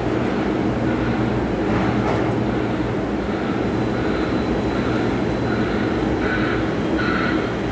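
Steady rumble of container terminal machinery, a quay crane and a straddle carrier running, with a low hum underneath. From about four seconds in, a warning beeper sounds in a regular repeating pattern, about one and a half beeps a second, growing louder.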